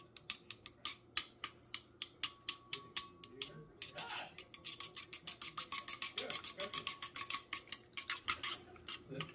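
Metal chopsticks beating raw eggs in a bowl, clicking against its sides in a quick, even rhythm, about four clicks a second at first, speeding up from about four seconds in as the eggs are whisked smooth.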